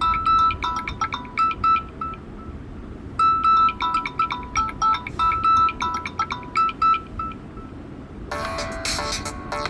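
Samsung Galaxy A03 ringtones: a short melody of quick, bright notes plays twice with a pause between, then about eight seconds in a different, denser electronic ringtone starts.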